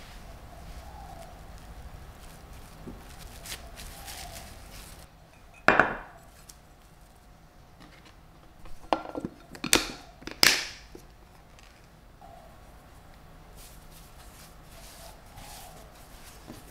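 Glass food container handled and set down on a wooden cutting board: one sharp clack about six seconds in, then a quick run of several glassy knocks and clatters a few seconds later, with soft rustling of hands and dough in between.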